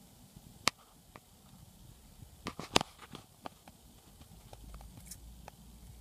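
Handling of a steel feeler gauge set: light metallic clicks as the thin blades are fanned and knock against each other and the engine. There is a single click about half a second in, then a quick cluster of sharper clicks around the middle.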